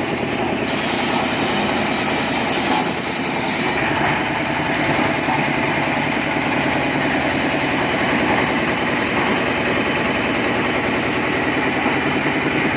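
Concrete mixer machine running steadily, its engine driving the drum in a constant mechanical din.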